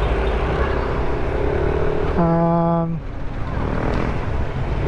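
Steady riding noise from a Yamaha NMAX scooter moving through city traffic. A little past two seconds in, a vehicle horn sounds once, a short flat honk of under a second, the loudest thing here.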